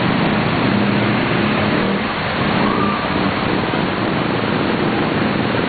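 Floodwater rushing over a street, a steady loud noise, with vehicle engines running underneath.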